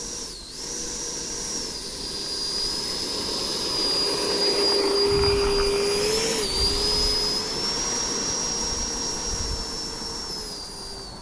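Electric ducted fan of a model F-22 jet running at high speed, a steady high whine whose pitch dips briefly twice. It swells to its loudest in the middle and fades toward the end.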